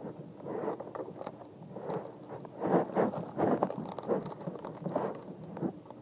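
Irregular knocks, clicks and rattles of hands working the latch and handle of a sliding balcony door that stays locked and will not open.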